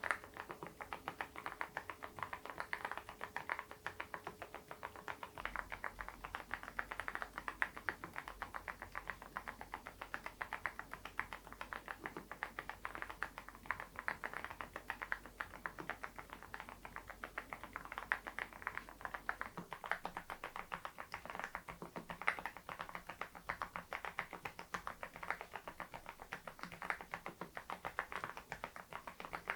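Continuous typing on a Geekstar GKG87R tenkeyless mechanical keyboard fitted with its stock HMX Sunset silent switches: a steady stream of soft, muted keystroke clicks.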